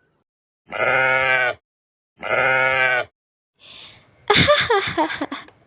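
Two long, wavering goat bleats, each just under a second, followed about a second later by a burst of laughter.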